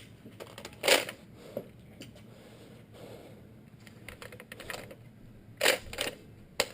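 Scattered sharp plastic clicks and knocks from a Nerf blaster being handled and reloaded with shells, the loudest about a second in and a quick pair near the end.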